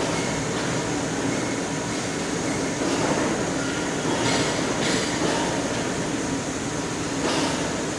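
Six-axis CNC pipe plasma cutting machine running, a steady mechanical drone with a faint whine as its torch head repositions over the pipe, swelling into louder rushes a few times.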